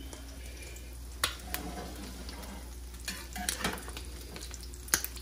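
Crab cakes frying in ghee in a cast iron skillet with a quiet, steady sizzle. A few sharp clicks and taps come from a metal spatula against the pan.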